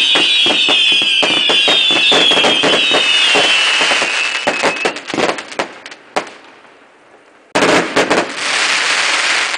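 Fireworks going off: rapid crackling bangs under a chorus of whistles gliding slowly down in pitch, dying away after about five seconds. After a short lull, a dense crackling hiss starts abruptly near the end.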